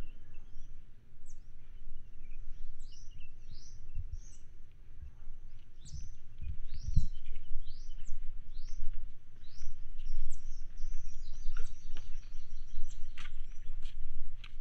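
Small birds chirping throughout, many short quickly rising notes with a rapid run of notes late on, over a steady low rumble that grows louder in the second half. A few dull thumps of footsteps on the wooden boardwalk about four to seven seconds in.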